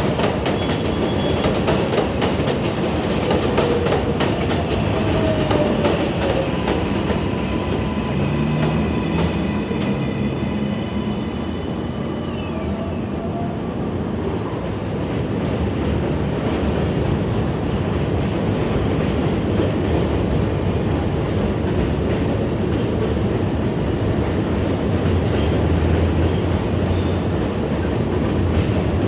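New York City subway train running through the station: a steady rumble with rapid clicking of wheels over rail joints, and a few thin high whining tones that fall away about halfway through.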